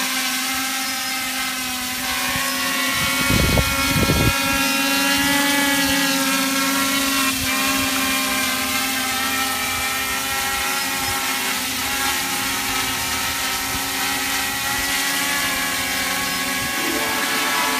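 Diatone Reptile 500 quadcopter hovering, its four T-Motor MT2216 900kv brushless motors spinning 10x5 Graupner propellers with a steady buzzing whine of several close tones that waver slightly. Two brief low thumps come about three and four seconds in.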